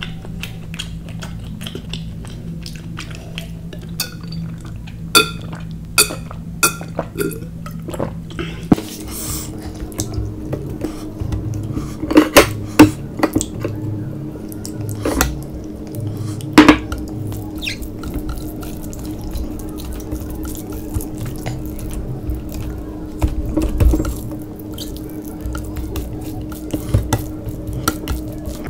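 Hand mixing rice and curry on ceramic plates: scattered clinks and knocks against the plates, with a run of small clinks early and a few sharper, louder knocks around the middle, over a low steady hum.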